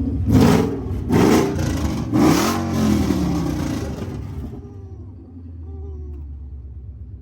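Car engine with a loud aftermarket exhaust revved in three quick blips, the last one falling away, then settling to a steady idle about four seconds in.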